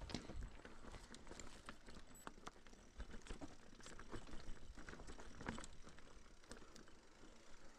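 Irregular crunching and clicking on loose stony ground, in the uneven rhythm of slow steps on a rocky mountain trail.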